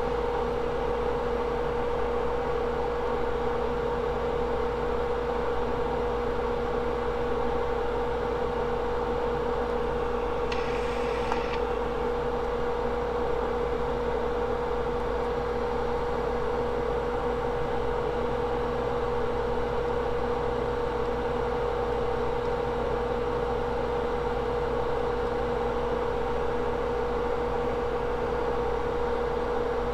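A steady hum with a constant mid-pitched tone over a faint hiss, unchanging throughout. A brief hiss comes about eleven seconds in.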